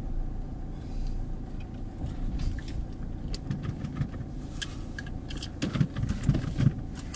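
Car running at low speed, heard from inside the cabin as a steady low engine and road rumble, with scattered light clicks and a few heavier thumps about six seconds in.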